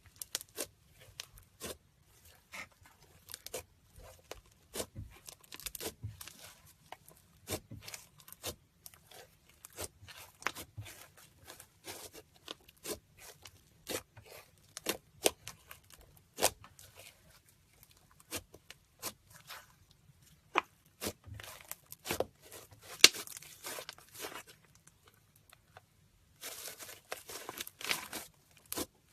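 Slime being handled: a run of irregular sticky clicks and pops, with longer crackling stretches a little before and toward the end.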